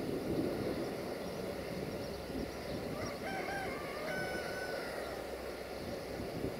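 A rooster crowing once, from about three seconds in for roughly two seconds, over steady low background noise.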